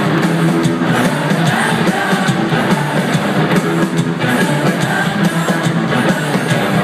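Live rock band playing loudly, electric guitar and drums, heard from within the concert crowd.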